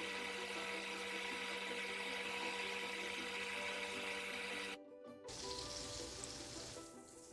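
Okra deep-frying in hot oil, a steady sizzle that cuts off suddenly after about five seconds, then a second stretch of sizzle that fades away near the end, over background music.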